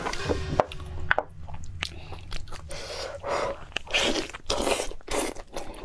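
Close-miked biting and chewing of braised pork bone meat: a few sharp clicks in the first second or so, then a run of chewing sounds about twice a second.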